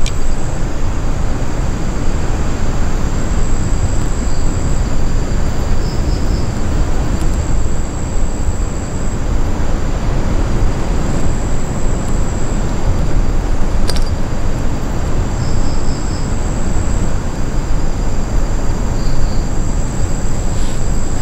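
A steady low rumbling noise, with a thin steady high whine above it and a few short chirps.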